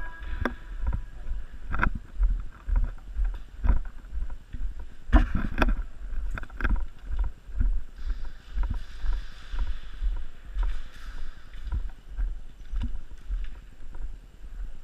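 Sharp cracks of airsoft guns firing during close-quarters play, scattered through and bunched together about five seconds in, over repeated low thuds and rustle of movement.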